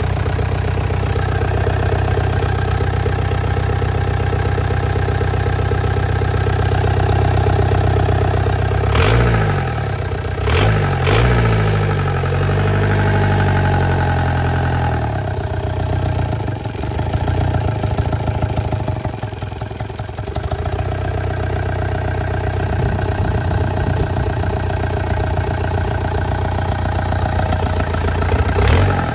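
Mechanical VW ALH 1.9 TDI four-cylinder diesel running just after starting, its idle set too low and sounding a little funky. The throttle is blipped twice, about nine and eleven seconds in, and the revs sag back down each time.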